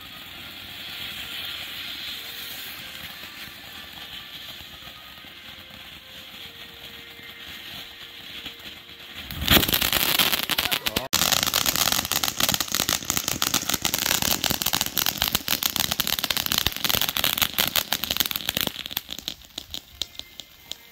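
Ground firework fountain burning with a steady hiss. About nine and a half seconds in it breaks into loud, dense crackling that goes on for about nine seconds, then thins out into scattered pops and stops near the end.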